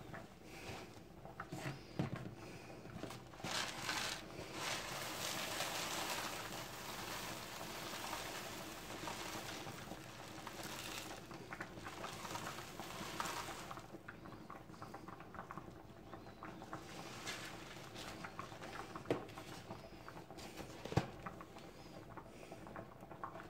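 Four-grain flake porridge boiling in a stainless steel pot on an electric hob: thick bubbling with many small pops, busier in the first half, and two sharper pops near the end.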